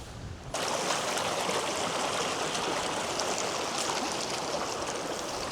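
Creek water rushing steadily over a stream crossing, starting abruptly about half a second in.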